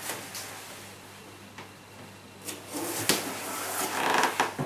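Masking tape and paper being handled: quiet at first, then from about halfway in a couple of seconds of rustling and crackling with small sharp clicks.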